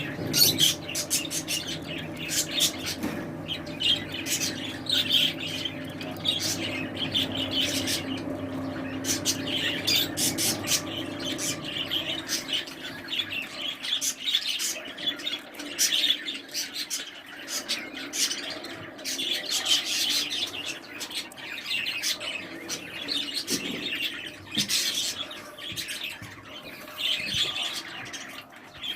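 Small pet cage birds chirping and squawking in quick, scattered calls. A low steady hum lies under them for the first twelve seconds or so.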